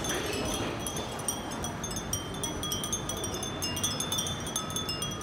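Many small Japanese fūrin wind chimes tinkling together: a dense, constant scatter of high, short, ringing tones.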